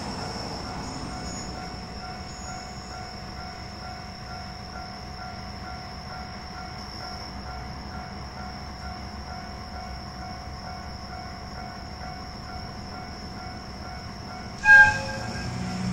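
Diesel shunting locomotive idling with a steady low rumble and faint steady whines. Near the end it gives one short, loud blast of its horn.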